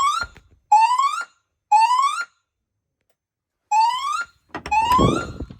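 Fire alarm voice-evacuation speaker sounding its alert tone: short rising whoop sweeps in groups of three with a pause between groups, a temporal-3 evacuation pattern. A brief low rumble comes just before the last sweep.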